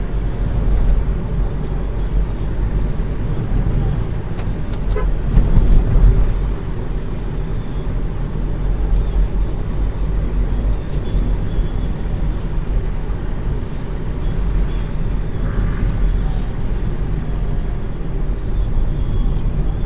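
Steady low rumble of road and engine noise from inside a moving car, with a brief louder swell about five to six seconds in.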